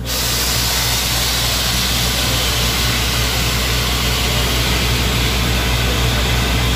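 Borewell drilling rig running, a steady engine drone under a loud rushing hiss of compressed air blowing water out of the borehole: the bore has struck groundwater.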